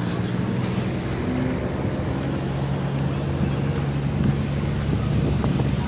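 SANY SR280R rotary drilling rig's diesel engine running steadily with a low, even drone.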